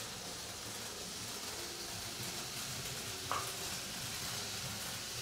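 Freshly serviced Märklin 3021 H0 model diesel locomotive running along the layout track with its coaches: a steady whirring hiss from the motor and wheels on the rails, with one brief sharp squeak a little over three seconds in.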